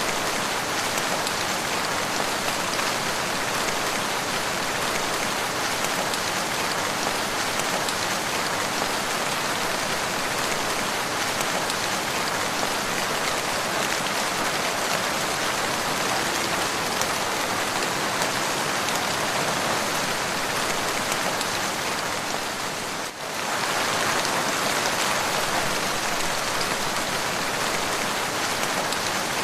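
Steady rain falling, an even hiss of many drops, with a brief dip in level about three-quarters of the way through.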